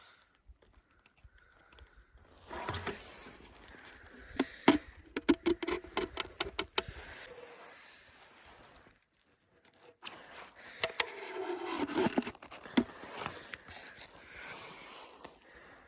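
Irregular rustling and scraping with bursts of rapid sharp clicks, as of things being handled, with a short pause about halfway through.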